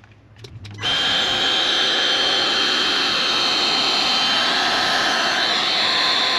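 Ryobi heat gun switching on about a second in, then running steadily: an even blowing hiss from its fan with a thin high whine. It is heating the e-bike motor's housing to soften the adhesive gasket on the controller cover.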